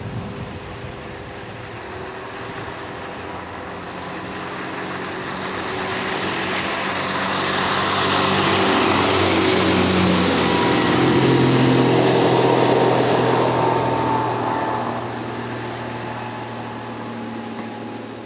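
Outboard motor of a small fibreglass motorboat running at speed. It grows louder over several seconds as the boat passes close, with a rush of water and spray, then fades away.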